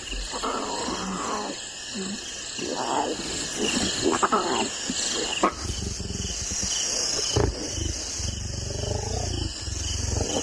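Lionesses growling and snarling in several short bursts, then a lower, steadier rumble, as they warn suckling cubs off the teat.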